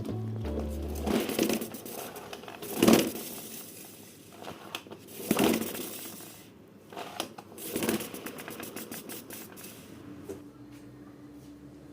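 Rustling and scraping from objects being handled, in four swells about two and a half seconds apart, with scattered light clicks. A faint steady hum comes in near the end.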